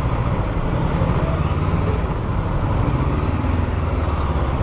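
Honda CB500X motorcycle's parallel-twin engine running steadily at low revs in city traffic.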